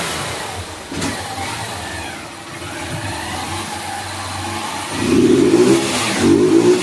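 Honda CG 160 single-cylinder four-stroke, bored out with a 190 kit and on its stock exhaust, running in gear on a roller dynamometer. It runs steadily at part throttle, then revs up in two short bursts about five and six seconds in.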